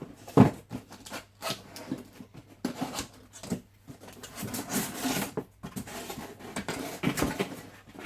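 Cardboard packaging being opened and its contents handled: irregular knocks, scrapes and rustles, the sharpest knock about half a second in.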